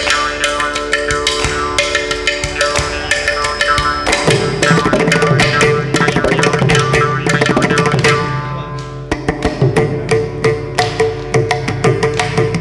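Mridangam played in fast, dense strokes in a Carnatic percussion passage, over steady pitched tones. A deeper, fuller layer of drumming comes in about four seconds in.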